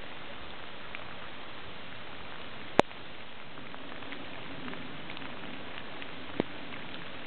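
Steady rain pattering on wet leaf litter and standing water, with scattered faint drop ticks. There is one sharp, loud click a little under three seconds in and a smaller one later.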